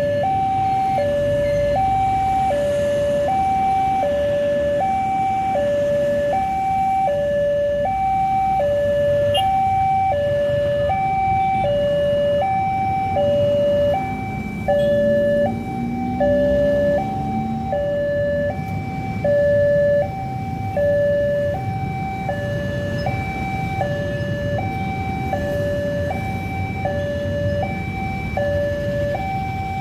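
Railway level-crossing alarm: an electronic two-tone warning played through the crossing's loudspeaker horn, switching steadily back and forth between a lower and a higher tone. It warns that a train is approaching and the barriers are down.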